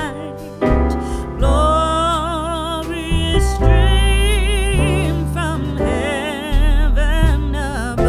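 Background music: a sung melody in long wavering notes over piano and bass.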